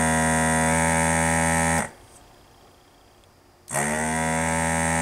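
Electric desoldering gun's vacuum pump running in two bursts, a steady buzzing hum while it sucks molten solder from a capacitor's leads. The first burst cuts off about two seconds in, and the pump starts again near the end.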